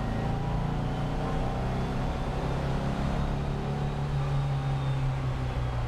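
Porsche 356's air-cooled flat-four engine on twin Solex 40P11 carburettors running steadily, heard from inside the car.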